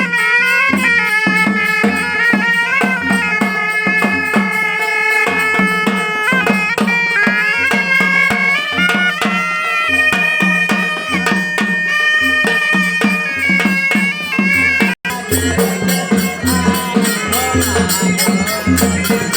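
Traditional village band music: a reedy wind instrument plays a wavering melody over steady drumming. It breaks off for an instant about fifteen seconds in, then carries on.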